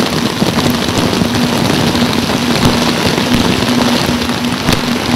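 Artificial rain from rain towers falling heavily and steadily, over the steady hum of an engine.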